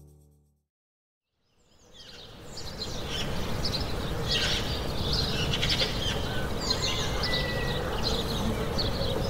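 The last chord of a country song fades out into a second of silence. Then an outdoor ambience fades in: birds chirping over a steady rushing noise.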